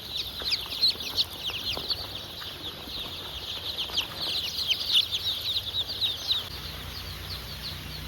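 A flock of young broiler chicks peeping together: a dense chorus of short, high, falling peeps that thins out after about six and a half seconds.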